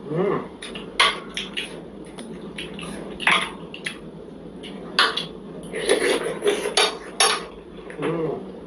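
Cutlery clinking against a plate in sharp, separate taps every second or so as momos are eaten, with softer eating sounds between.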